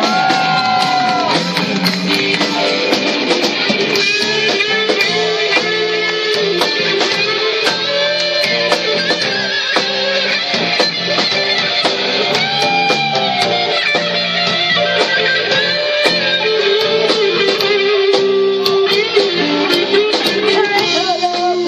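Live band playing, electric guitar prominent over a steady drum beat.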